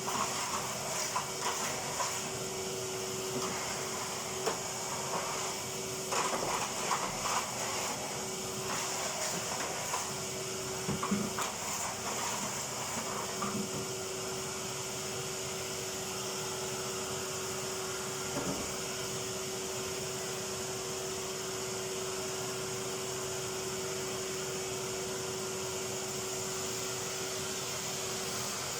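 Vacuum cleaner running steadily with a constant whine and hiss. Scattered knocks and clatters of the nozzle and pipe come through the first half, then the motor runs on alone.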